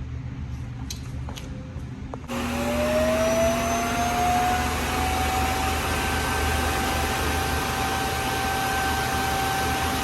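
Shark EZ self-empty base's suction motor switching on about two seconds in, after a few light clicks: a sudden loud rush with a whine that rises briefly, then runs steadily as it pulls the debris out of the docked robot vacuum's bin.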